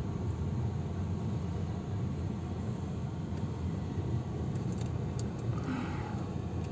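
Steady low rumble of a car driving slowly, heard from inside the cabin, with a few faint clicks and a short swell of higher noise near the end.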